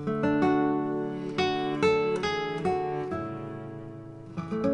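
Background music: a slow acoustic guitar melody, each plucked note left to ring out and fade.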